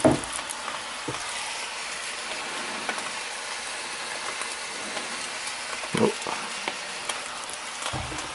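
Diced pork frying in a skillet with a steady sizzle, and a few light knocks in between.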